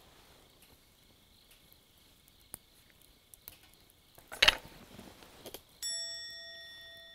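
A single bell-like ding starts suddenly about six seconds in and fades away over nearly two seconds, in the manner of an added sound effect. A short sharp breathy sound comes just before it, and a faint steady chirring of insects runs underneath.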